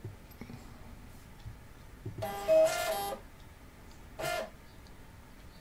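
Epson thermal receipt printer printing a screenshot: a pitched whir of its paper feed for about a second, starting about two seconds in, then a second, shorter burst about a second later.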